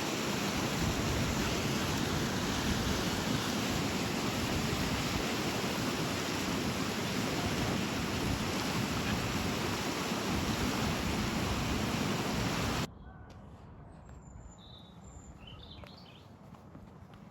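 A loud, steady rushing noise that stops abruptly about thirteen seconds in, giving way to a quiet background with a few short bird chirps.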